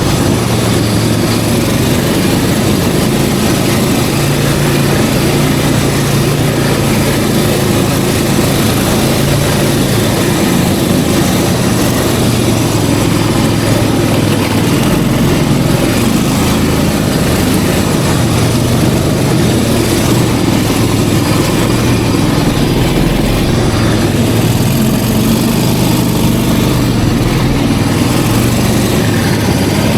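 Snowmobile engine running steadily, its pitch rising and falling a little as the throttle changes.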